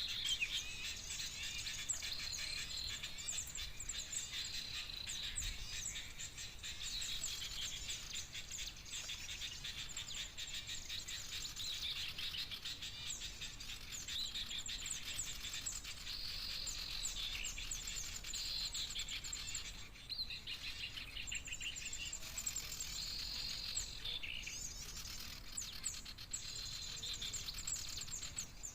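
A dense, continuous chorus of small birds' rapid high chirps and twitters, many notes overlapping, with a short break about twenty seconds in.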